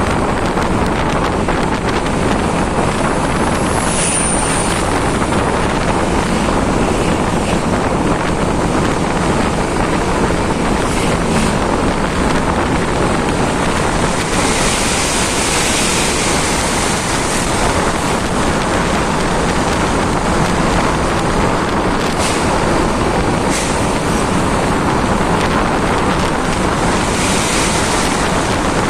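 Wind rushing over the microphone, with steady road and traffic noise from a vehicle moving at speed. No horn or other distinct sound stands out.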